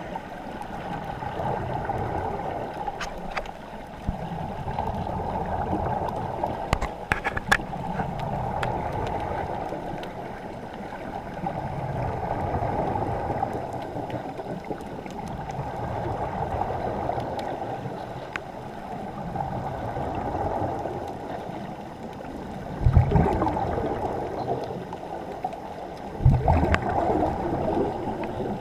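Muffled underwater rush of moving water heard through a sealed camera housing, swelling and fading every few seconds, with two heavy knocks near the end.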